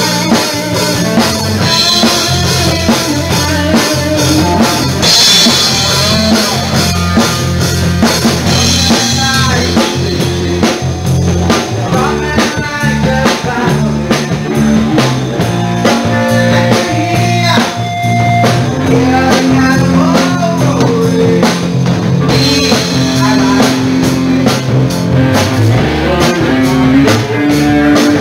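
Rock music from a band: a drum kit keeping a steady beat under electric guitar and bass guitar.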